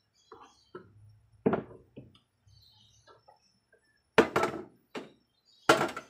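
About eight sharp knocks of kitchenware against hard surfaces, the loudest a pair about four seconds in and one near the end.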